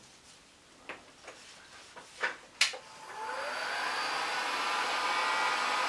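A few light knocks and a sharp click, then about three seconds in a handheld electric heat gun starts up: its fan whine rises briefly and settles into a steady blowing. It is warming a small cup of freshly mixed epoxy resin to lukewarm, so that the resin flows more thinly and its bubbles rise out.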